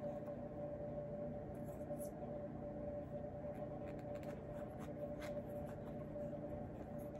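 Small clicks and scrapes of a metal belt buckle and the belt's strap being threaded and fastened at the waist, over a steady background hum.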